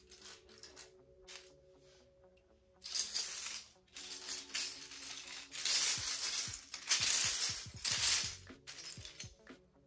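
Plastic LEGO bricks clattering and rattling as hands rummage and sift through a loose pile, loudest from about three seconds in until near the end. Soft background music runs underneath.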